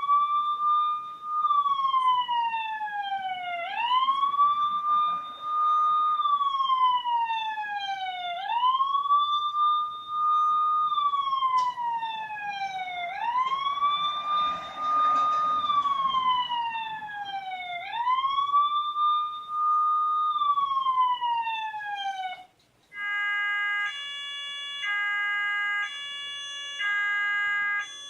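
Siren sound effect: a wailing siren rises quickly, holds, then slides down, repeating about every four and a half seconds, five times. It stops about 22 seconds in and gives way to an electronic alarm that switches between two tones about once a second.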